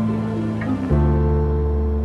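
Slow, calm background music of sustained held chords; about a second in the chord changes and a deep bass note comes in.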